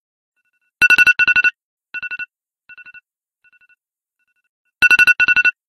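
Electronic alarm beeping in quick groups of about four beeps: two loud groups about a second in, then fainter groups dying away, then two loud groups again near the end.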